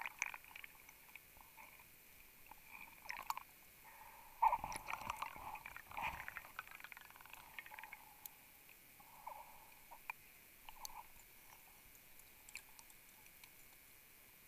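Faint underwater sounds: soft gurgling with scattered light clicks and knocks, busiest from about four and a half to six seconds in.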